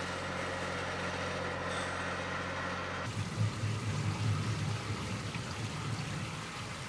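An engine running steadily among the vines. About three seconds in it gives way to a motor-driven rotary-cage grape destemmer running, an uneven, pulsing low rumble.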